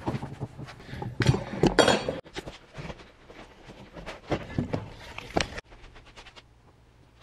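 A spreader scraping and dragging thickened epoxy across a plywood panel, with irregular clicks and knocks of tool and wood handling. Near the end it drops sharply to a faint low hum.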